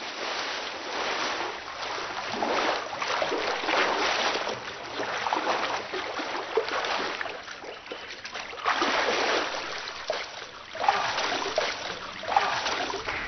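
Washing water with no tone in it, swelling and fading every second or two, with two sharper surges near the end.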